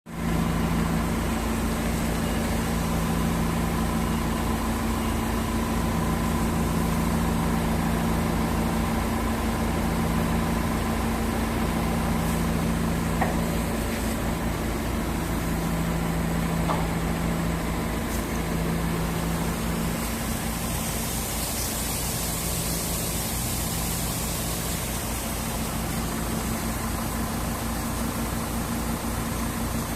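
Combine harvester running steadily: a continuous low engine drone with a pulsing hum, and a brief hiss a little after two-thirds of the way through.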